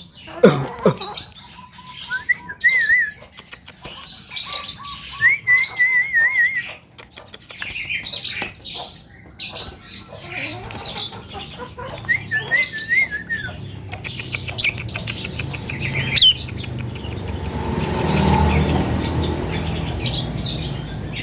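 Javan myna calling: a varied run of trilled, wavering whistles, given three times, mixed with quick clicking chatter and short calls, and a stretch of rustling near the end.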